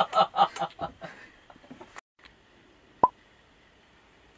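A man's loud, theatrical 'ha-ha-ha' maniacal laugh in rapid even beats, trailing off within the first second or so. About three seconds in comes one short, sharp blip.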